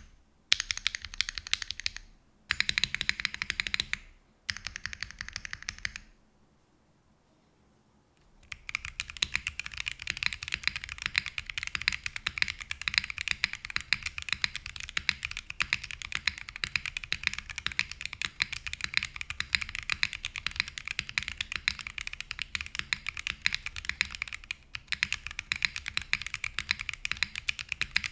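Mechanical keyboard fitted with Akko Creamy Purple Pro tactile switches on a copper plate, typed on. Three short runs of rapid keystrokes come first, then a brief pause, then continuous fast typing from about a third of the way in.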